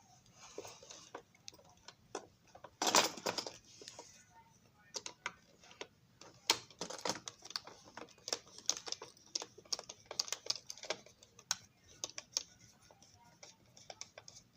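Irregular light clicks and taps of small tools on the plastic body of a model railroad dome car being taken apart, with a louder clatter about three seconds in.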